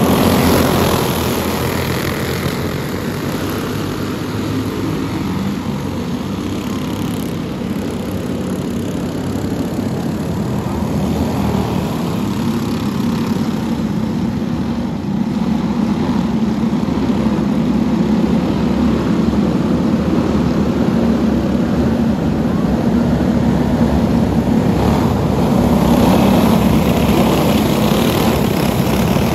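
A pack of Clone-class racing karts, each with a small single-cylinder four-stroke clone engine, running flat out on a dirt oval: a continuous buzzing drone of many engines, loudest as the field passes close at the start and again near the end.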